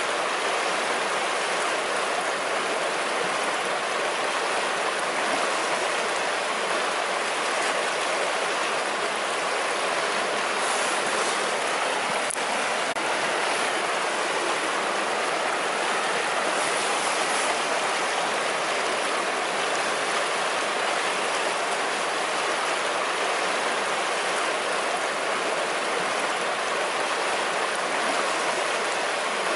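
A river flowing: a steady, unbroken rush of running water.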